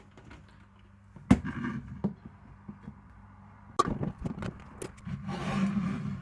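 Small metal armature parts and tools being handled on a hard work surface: scattered clicks and knocks, two sharper knocks about a second and four seconds in, and a busier clatter near the end, over a steady low hum.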